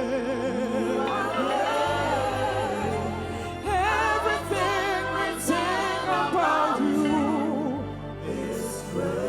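Gospel worship song: a voice singing long, wavering held notes with vibrato over a bass line that changes note every second or so.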